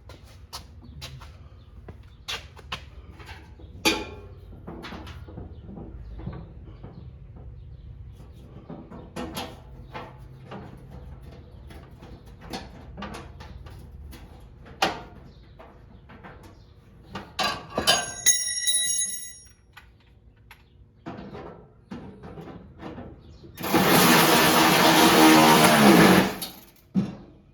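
Scattered light clicks and knocks of parts and tools being handled, then near the end about three seconds of loud whirring from a small motor that falls in pitch as it stops.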